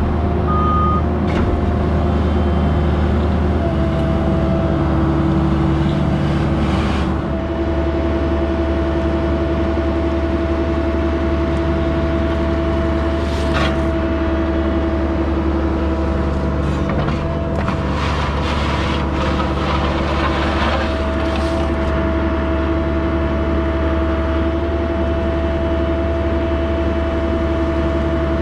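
Diesel engine of a Cat mini excavator running steadily while grading, its note shifting slightly a few times, with occasional short scrapes and knocks.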